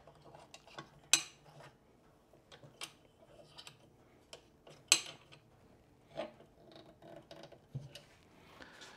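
Light metal clicks and clinks of a steel C-clamp being screwed down on an angle-iron jig and a miter gauge, with two sharper knocks about a second in and about five seconds in.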